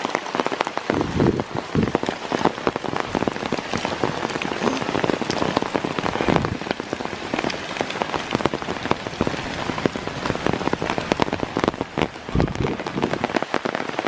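Heavy rain pouring onto forest leaves and ground: a dense steady hiss full of close drops ticking. A few dull low thumps come through about a second in, around the middle and near the end.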